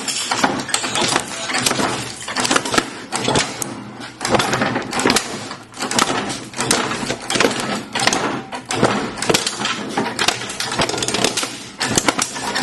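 Lawn mower blades chewing up a plastic toy: a dense, irregular run of cracks and clattering hits.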